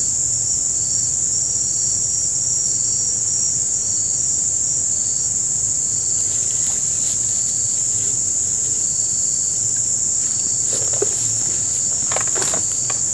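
Steady loud chorus of insects, a high-pitched drone, with another insect chirping in short regular pulses through the first half. A few brief rustles and knocks come near the end.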